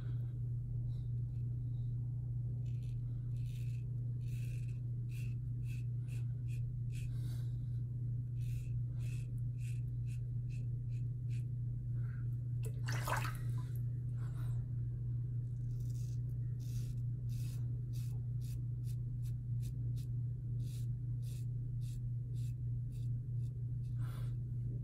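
Vintage open-comb double-edge safety razor scraping through lathered stubble in quick, short strokes, heard as irregular scratchy crackles a couple of times a second, on an across-the-grain pass. A steady low hum lies underneath, and one longer, louder burst of noise comes about halfway through.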